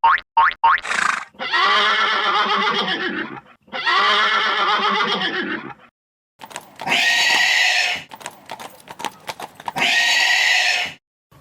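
Horse whinnying: a quick stuttering burst at the start, then four long neighs one after another with short pauses between them.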